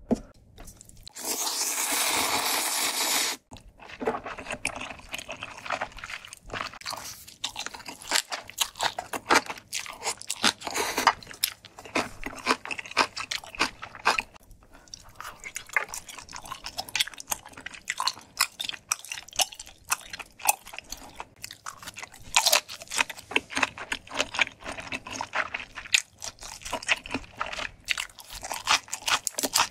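Close-miked eating of ramen and dumplings. About a second in comes a loud, breathy rushing sound that lasts about two seconds and stops abruptly. After that, steady chewing follows, with many small, irregular wet clicks and crunches.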